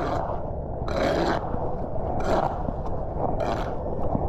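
Footsteps in sneakers through wet grass and fallen leaves, one swishing, crunching step about every second, over a steady low rumble.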